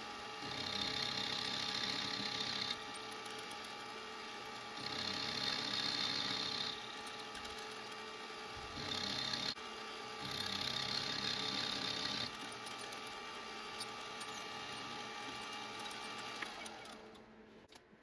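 Milling machine running steadily with a 1/2-inch end mill cutting the top of a brass screw cap. Four spells of cutting noise, each one to two seconds long, rise over the spindle's steady hum, which drops away near the end.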